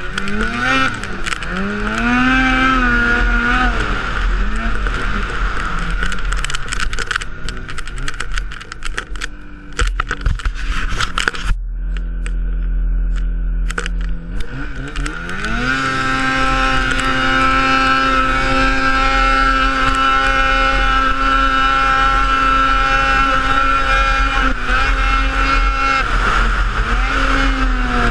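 Ski-Doo Rev 600 snowmobile's two-stroke engine revving up and down while riding. It drops to a low, steady tone about halfway through, then climbs and holds a steady high pitch for about ten seconds before easing off near the end.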